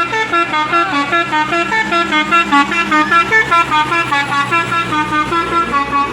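Bus 'telolet basuri' multi-tone horn playing a fast melody of stepped, pulsing notes over a steady low hum.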